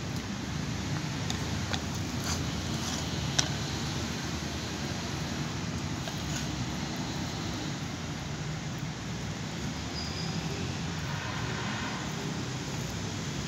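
Steady low background rumble, with a few sharp clicks in the first few seconds, the loudest about three seconds in.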